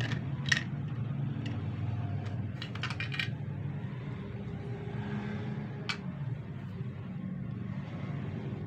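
Small sharp clicks and taps of plastic toner-cartridge parts being handled: one about half a second in, a quick cluster near three seconds and another near six, over a steady low background hum.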